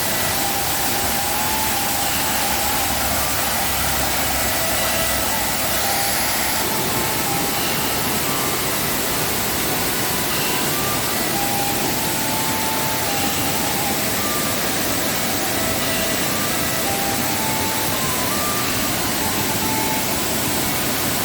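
Mae Kampong waterfall rushing in rainy-season high water: a loud, steady roar of falling water, with short high notes scattered through it.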